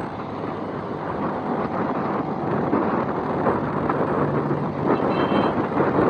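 Wind rushing over the microphone of a moving motorcycle, with its engine and street traffic underneath, growing gradually louder.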